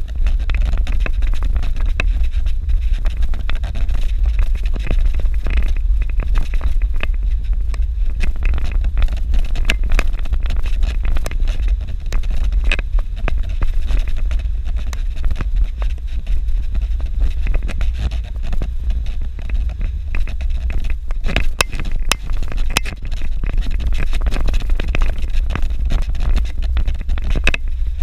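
A vehicle driving over a rough dirt road: a steady low rumble with many small clicks and rattles throughout.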